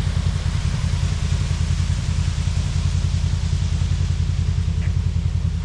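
Polaris RZR UTV engine idling steadily, with an even low pulsing and no revving.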